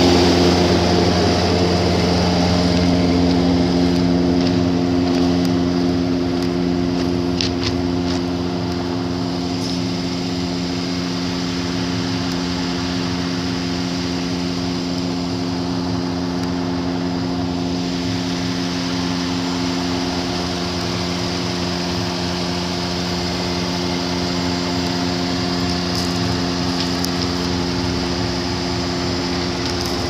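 A vehicle engine running steadily, its hum holding one pitch throughout.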